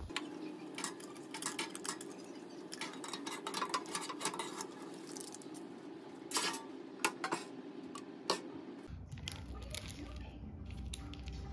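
Clinks, taps and scrapes of a toaster oven's metal tray and a plate as food is slid out of the oven, over a steady low hum; the clatter stops about eight and a half seconds in.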